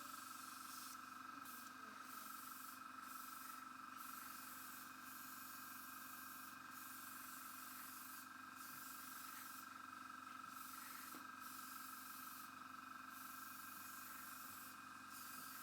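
Near silence: faint steady room tone with a low, even hum.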